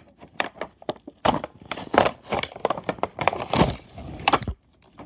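Clear plastic toy packaging crackling and snapping in quick, uneven handling noises as a toy train and its parts are pulled out of the blister tray; the noise stops about half a second before the end.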